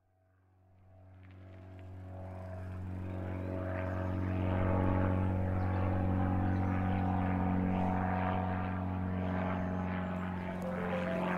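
Propeller airplane engine running as a steady, even drone, swelling in from silence over the first four seconds or so and then holding level.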